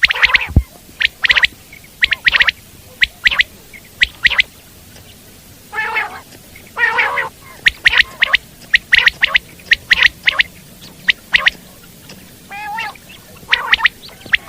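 Common quail (Coturnix coturnix) calling over and over: quick groups of sharp, clipped notes in the familiar 'wet-my-lips' rhythm, with a few lower, wavering notes in between.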